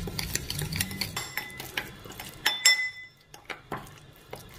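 Metal spoon stirring a thick spice masala paste in a bowl: irregular scraping and clinking against the sides. One sharper clink about two and a half seconds in rings briefly.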